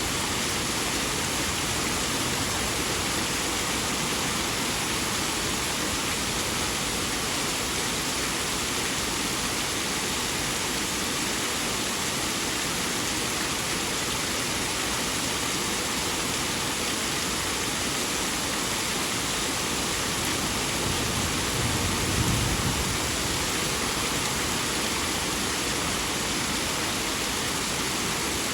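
Rain falling steadily, an even wash of noise. About three-quarters of the way through, a brief low rumble swells and fades.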